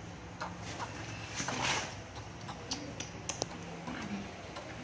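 Baby macaque sucking on a milk bottle: quick rhythmic sucking clicks, about three a second, with a brief rustle about a second and a half in.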